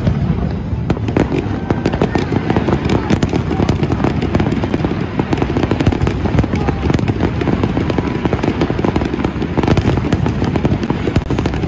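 Fireworks display going off heavily: many shells bursting at once, with dense, rapid, overlapping bangs and crackling over a continuous low rumble.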